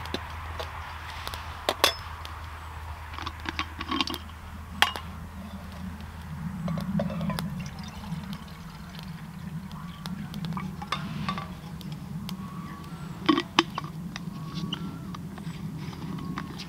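Stainless steel camp cups and pot clinking in a handful of sharp metal knocks while water is poured between them.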